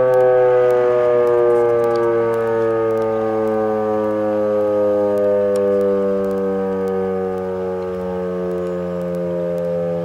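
Model 7 outdoor warning siren sounding a steady tone during a siren test. The pitch slowly sinks over several seconds and the loudness swells and fades a little.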